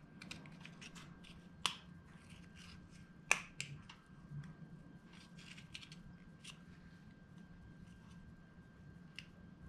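Faint clicks and taps of small Porsche 944 power seat switch parts being handled and pressed together during reassembly, with two sharper clicks, one just under two seconds in and one just over three seconds in.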